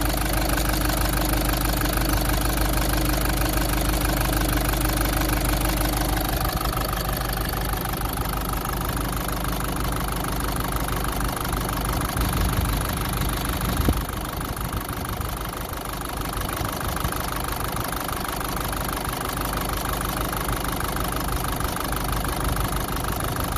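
Land Rover Freelander 2's four-cylinder engine idling steadily, freshly repaired with a replacement piston and valves; the owner suspects a faulty injector that keeps one cylinder from firing until the engine warms up. A single short knock is heard about halfway through.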